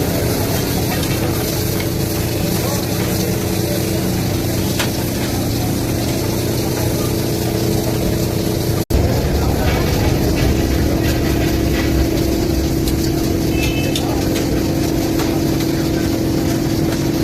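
Steady mechanical hum with a low din of voices in the background, broken by a sudden dropout about nine seconds in, after which the same hum carries on.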